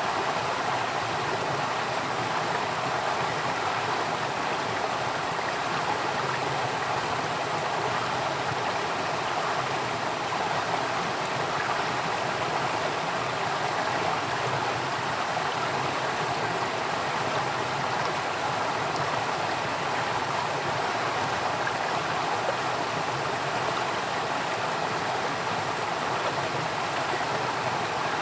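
Water flowing in a stream, a steady unbroken rush and babble.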